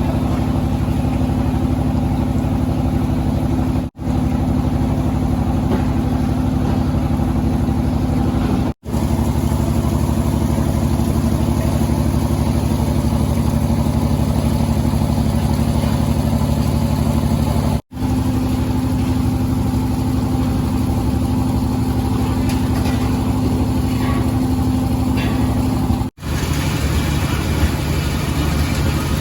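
Fishing boat's engine running at a steady speed, a constant drone with several even tones. It cuts out for an instant four times, where clips are joined.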